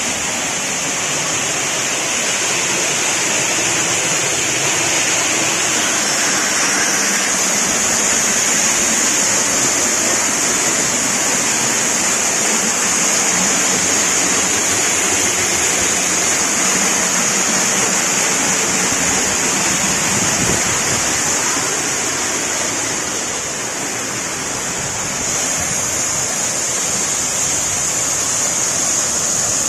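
Waterfall: water falling over rock into a pool, a steady rushing with a bright hiss, dipping slightly for a moment near the end.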